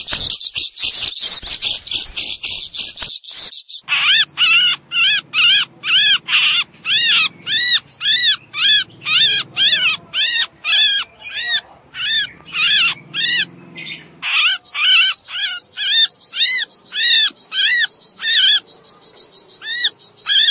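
Sooty-headed bulbul (kutilang) lure calls in breeding excitement: a repeated arched chirp, about two a second, starting about four seconds in. A high, fast, cricket-like buzzing runs at the start and comes back about two-thirds of the way through, under the chirps.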